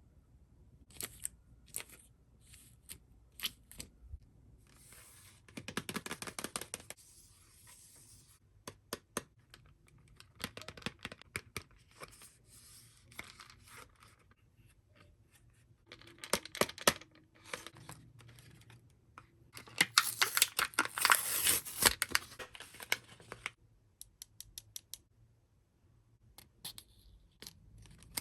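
Toy packaging being opened by hand: plastic torn and crinkled in bursts, with small sharp clicks and rustles between. The longest and loudest stretch of tearing and crinkling comes about two thirds of the way through.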